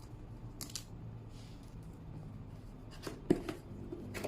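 A box being opened by hand: short scraping and rustling of the box and its contents, with a sharp knock about three seconds in.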